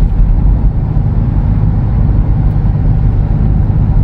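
Steady low rumble of road and engine noise heard inside the cabin of a Toyota Fortuner SUV cruising on a highway.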